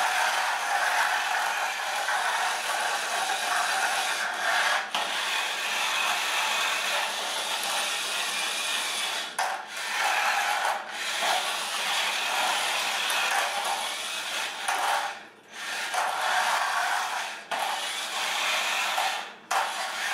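Radio Shack Wheelie Bug wired-remote toy car driving on a laminate floor: its small electric motors and plastic gears whirr steadily as the wheels roll. The whirr cuts out briefly several times as the car is stopped and steered, since turning shuts off one of its two motors.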